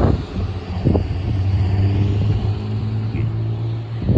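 A motor vehicle's engine running steadily as a low hum, with a few short thumps, one at the start, one about a second in and one at the end.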